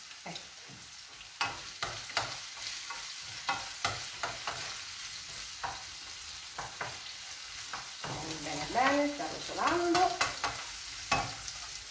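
Sliced artichokes sizzling in a frying pan while a wooden spoon stirs them, clacking against the pan. A few short squeaky sounds come about nine seconds in.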